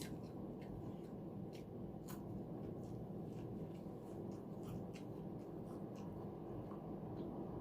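Soft, irregular chewing and small mouth clicks of someone eating salted tofu, over a steady low background hum.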